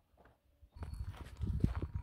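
Footsteps on a dry dirt and gravel track, a quick run of crunching scuffs that starts about a second in.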